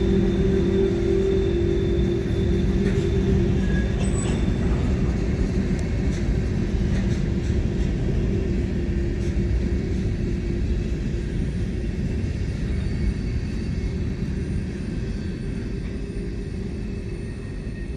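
Freight train rolling past, a steady rumble of cars on the rails with a low drone, slowly fading.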